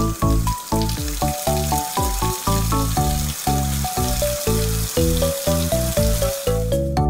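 A hissing running-water sound effect from a toy kitchen tap, which stops shortly before the end, over background music of short, evenly spaced melody notes.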